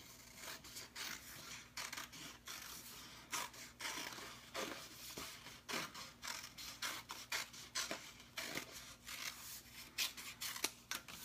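Scissors cutting through folded construction paper: a quick, uneven run of short snips.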